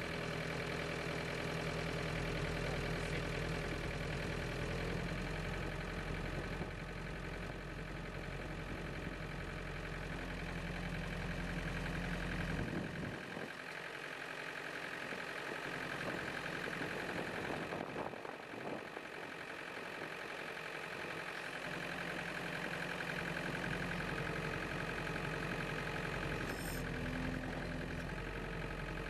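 Case IH 35B compact tractor engine running while the front-end loader raises and tilts its bucket, the engine note shifting several times as the loader works.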